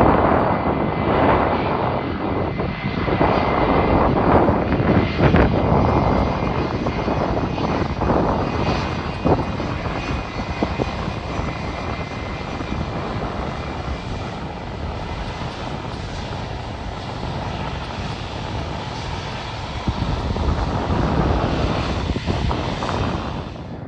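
Boeing 757 freighter's twin jet engines running as the aircraft rolls along the ground: a steady rush of engine noise with a thin whine on top, loudest in the first few seconds and easing a little after.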